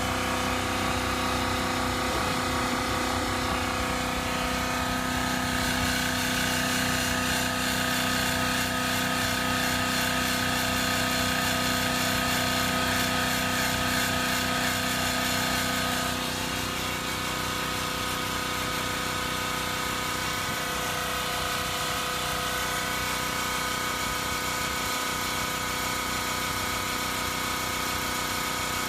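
Makita AC4000 electric air compressor running steadily. About sixteen seconds in, its tone changes and it becomes slightly quieter, and it then keeps running.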